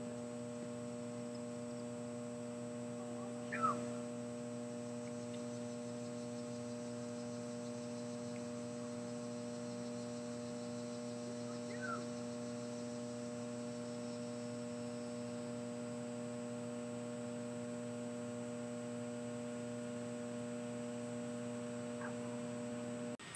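Steady electrical hum made of several constant tones, picked up by the recording chain. Two faint brief rising calls come about 4 and 12 seconds in.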